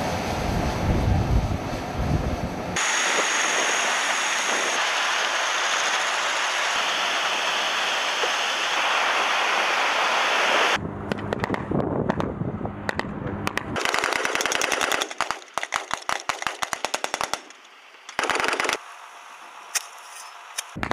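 A steady low rumble and rushing noise, then from about eleven seconds in rapid bursts of automatic machine-gun fire, several long strings of shots, the densest in the middle of the bursts.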